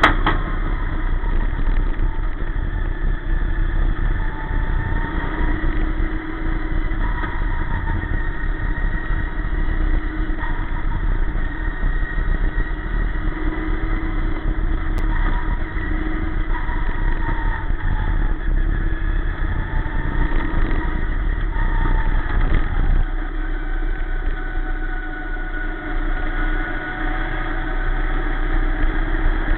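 Sportsman dirt race car's engine running at racing speed, heard from inside the cockpit. Its pitch rises and falls repeatedly as it goes on and off the throttle through the turns.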